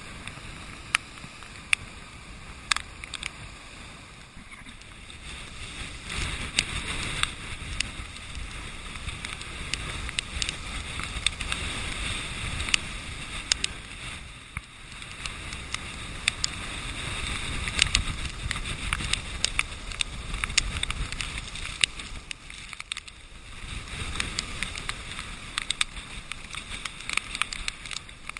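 Hurricane-driven storm surf breaking against a rock seawall, a continuous roar of crashing and hissing water that swells and eases every several seconds. Frequent sharp ticks of water drops striking the GoPro's waterproof housing.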